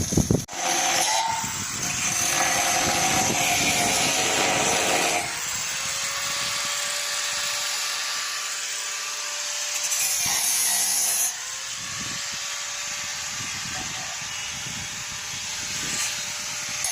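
Steel metalworking on the stair framing: a loud, steady, harsh hiss. A faint steady whine enters with a slight upward glide about five seconds in and again about eleven seconds in.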